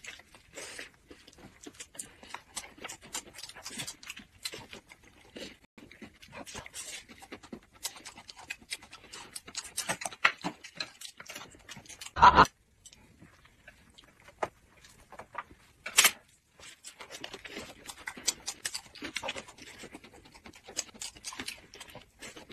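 Close-miked eating sounds of people chewing and crunching thin pancake wraps filled with raw vegetables. Wet mouth clicks and crunches come in quick succession, with two louder short sounds past the middle.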